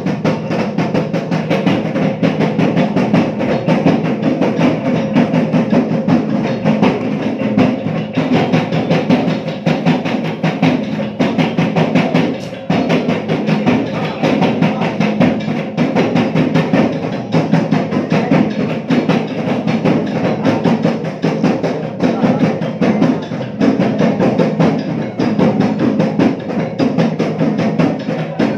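Drums beaten in a fast, steady rhythm, dense rapid strikes without a break.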